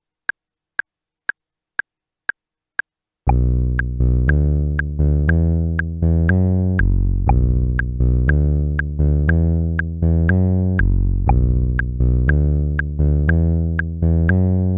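A metronome click ticks about twice a second, alone for the first three seconds or so. Then a synthesizer comes in, playing a steady pattern of short low-pitched notes in time with the click, which keeps going underneath.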